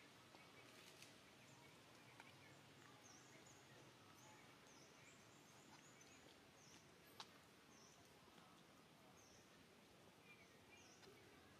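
Near silence: faint outdoor background noise with small high chirps repeating every second or so, and a single sharp click about seven seconds in.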